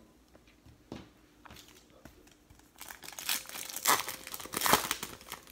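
Silver foil wrapper of a baseball card pack being torn open and crinkled by hand, a burst of crinkling in the second half, after a light tap about a second in.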